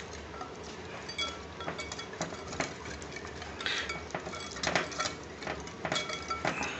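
A spoon clinking and scraping against a bowl while a thick yogurt-and-spice marinade is stirred, in irregular light clicks, some with a short ring.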